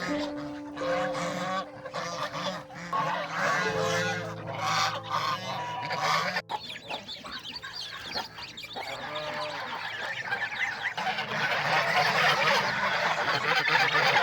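Farm geese honking among a flock of domestic fowl calling, over soft held music notes in the first half. From about the middle on, it turns into a dense chorus of many birds calling at once.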